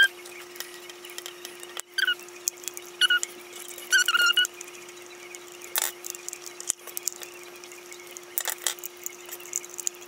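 Plastic parts of an old serial ball mouse being handled and fitted back together: a few short squeaks in the first half and scattered clicks and rustles later, over a steady hum.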